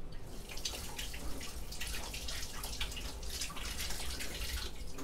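Water running from a kitchen tap and splashing in the sink as someone washes. It starts just after the opening and shuts off shortly before the end.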